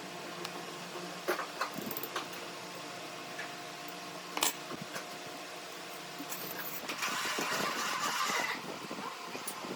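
Workshop sounds: a steady mechanical hum with scattered clicks and knocks, and a brief harsh hissing noise about seven seconds in that lasts over a second.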